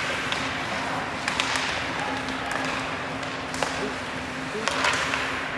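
Ice hockey arena ambience: a steady hum under the murmur of spectators' voices, with scattered sharp clicks and knocks from play on the ice.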